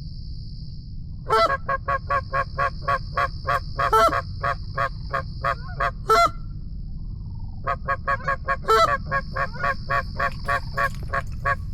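Canada goose honking in two quick runs of evenly spaced honks, about five a second, with a few longer, louder honks among them and a short pause in the middle. A steady high hiss and a low rumble lie under it.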